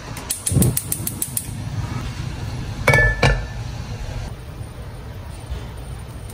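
Gas hob's igniter clicking, a quick run of sharp clicks for about a second as the burner knob is turned. About three seconds in, a pan is set down on the burner grate with a clunk and a brief ring.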